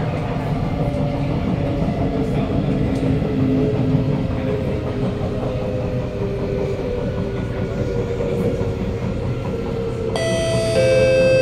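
Kawasaki Nippon Sharyo C751B metro train heard from inside the car while running, a steady rumble of wheels and track under a motor whine that slowly falls in pitch as the train slows. About ten seconds in, an onboard chime of several ringing tones starts.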